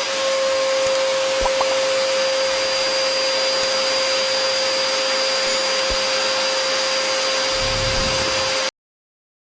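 A steady whirring electric motor with a constant whine, cutting off suddenly near the end.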